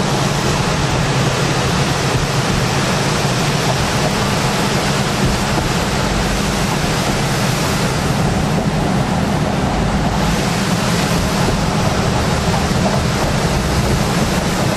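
Floodwater rushing through the open spillway gates, mixed with the car's road and wind noise through an open window, as one steady roar. The upper hiss thins briefly about eight seconds in.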